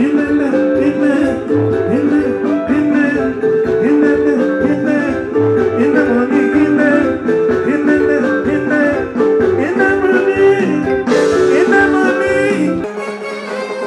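Band music with a steady beat and plucked guitar lines over bass and drums. About 13 seconds in, the bass drops out.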